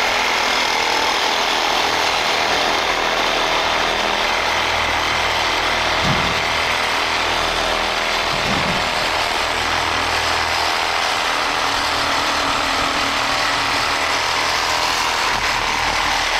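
A power tool cutting steadily through thick steel on an HVAC blower motor mount, running without a break throughout.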